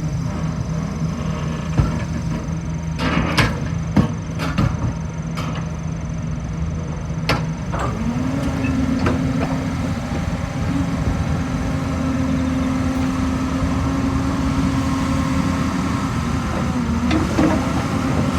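Excavator's diesel engine and hydraulics running steadily, with several sharp metallic knocks in the first half. About eight seconds in the engine note steps up and holds higher, as when the hydraulics are put under load.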